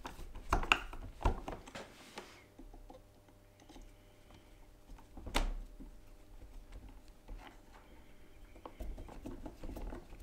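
Hand screwdriver driving screws into stacked metal ballast weights: scattered clicks and taps of metal on metal, a cluster in the first second or so and one sharper click about five seconds in, with light fiddling sounds in between.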